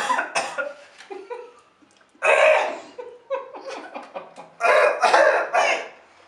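People coughing in several loud fits, set off by dry ground cinnamon taken in the mouth, with some laughing mixed in.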